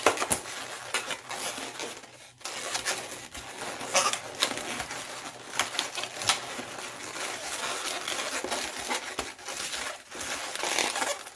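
Latex twisting balloons rubbing against each other and against the hands as they are twisted and wrapped into place, in short, irregular scrapes.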